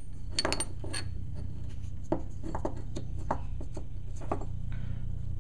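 Light metallic clicks and taps as the aluminium shifter nut and its small parts are handled and fitted onto the gear shift of a Borg Warner single-rail gearbox, about a dozen scattered knocks over a steady low hum.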